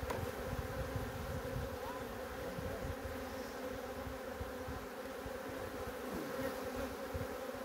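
Caucasian honeybees humming steadily over an opened hive, with soft low bumps as the wooden frames are shifted by hand.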